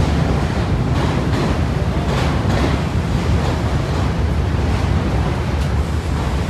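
Subway train running past at speed: a steady, loud rumble of wheels on rails with faint, irregular clicks, and wind buffeting the microphone.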